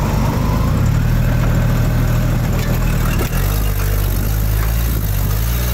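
A two-wheel-drive postal Jeep's engine running at low, steady revs as it creeps down a steep rock grade. Its note shifts slightly about three seconds in.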